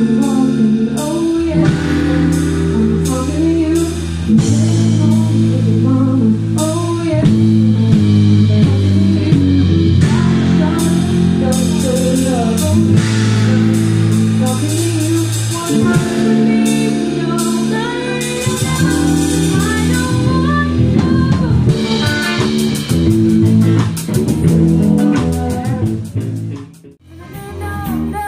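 Live band music recorded on a mobile phone: electric guitar, bass guitar and drum kit playing an R&B groove, with singing. Near the end the music drops out briefly and a different song starts.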